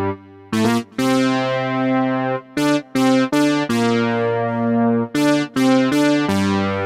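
Modal Electronics Cobalt8 virtual analog polyphonic synthesizer playing a bright chord patch. A rhythmic run of short chord stabs with sharp attacks is broken by brief gaps between longer held chords.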